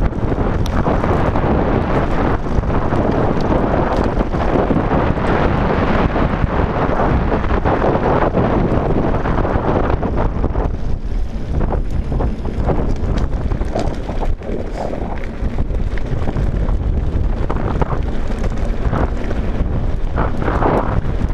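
Wind buffeting the microphone of a camera on a mountain bike descending a loose gravel track fast, with the tyres crunching and the bike clattering over stones in many small knocks. It is quieter for a few seconds about halfway through, then rougher again near the end.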